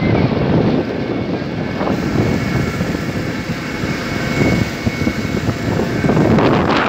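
Motorboat engine running steadily, with wind rumbling on the microphone in uneven gusts and water rushing past the hull.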